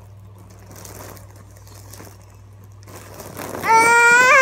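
Faint breathy hiss of helium being breathed in from a foil balloon, then about three and a half seconds in a child's voice, squeaky and high-pitched from the helium, lets out a long held "ah".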